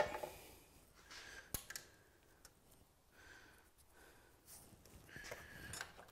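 Quiet hand-handling noises while a wire is marked with masking tape. A sharp knock comes at the start, then soft rustling of tape, a small tick and a few faint squeaks.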